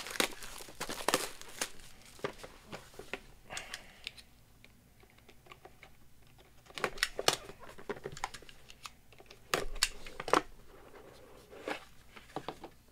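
Plastic shrink-wrap crinkling and tearing off a sealed trading-card box, then a box cutter scraping through the seal and the cardboard box being handled, in scattered clicks and rustles with a quieter pause about midway.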